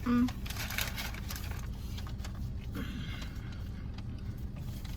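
Steady low hum of a car interior, with faint clicks and rustling from eating and handling food; a short hummed 'mm' right at the start.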